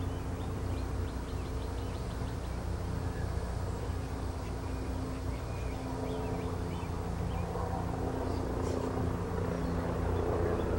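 A steady low engine drone, growing a little louder near the end, with faint bird chirps over it.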